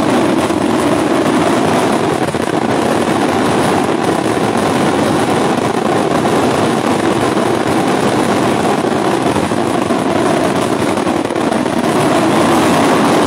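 Daytime fireworks barrage firing without pause, its reports so dense that they merge into one steady, loud roar.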